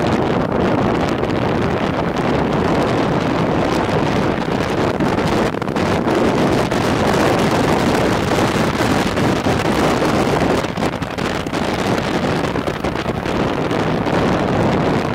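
Steady wind rush buffeting the microphone of a BMW R1100RT motorcycle travelling along a road, with the bike's running noise mixed in.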